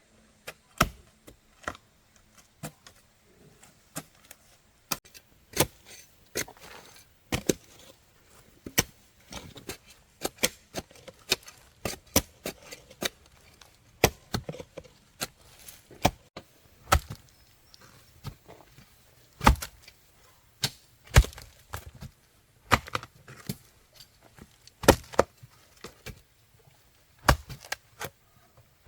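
Repeated blows of a hand tool chopping into wood: sharp, irregular strikes, about one a second.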